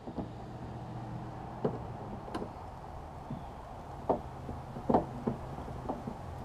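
Irregular knocks and clicks of parts being handled against a plastic kayak hull, about seven in all, the sharpest a little past halfway, over a steady low hum.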